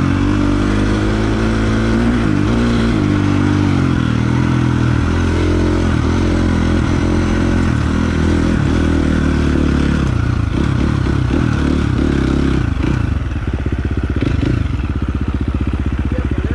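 Motocross dirt bike engine, heard from the rider's chest, with the revs rising and falling under riding. After about ten seconds it drops back and settles into a steady, even idle.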